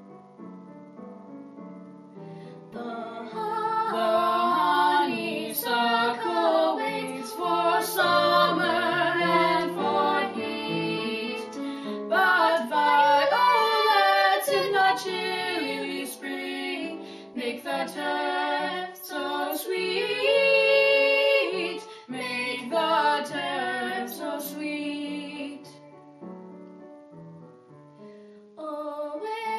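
A teenage girl and boy singing a duet over piano accompaniment. The piano plays alone for the first few seconds and again for a few seconds near the end.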